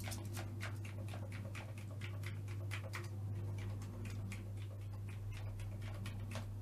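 Commodore 128 keyboard keys being pressed one at a time along each row in a keyboard test, giving a string of irregular clicks about three or four a second over a steady low hum.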